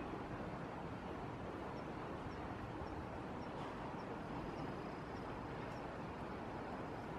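Steady rush of shallow stream water running over rocks, with faint high chirps about twice a second through the middle.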